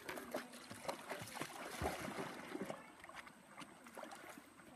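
A pit bull splashing as it wades into shallow river water and starts to swim, with irregular splashes that thin out after about three seconds.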